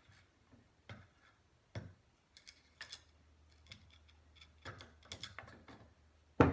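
Small metal clicks and clinks of a long screwdriver and a steel washer being worked down the stock bolt hole of a shotgun's buttstock, a few of them ringing briefly. One sharp knock near the end.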